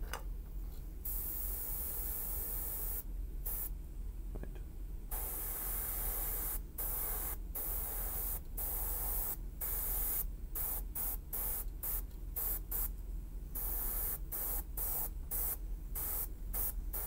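Gravity-feed airbrush spraying ink in short bursts of hiss as the trigger is pulled and released: one longer spray about a second in, then a quick run of short bursts from about five seconds on.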